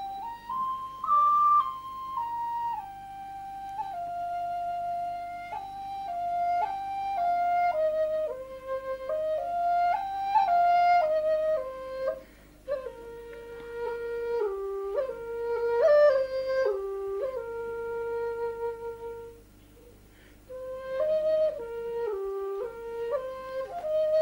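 Background music: a solo flute melody, one line stepping up and down through held notes, breaking off briefly near the end before resuming.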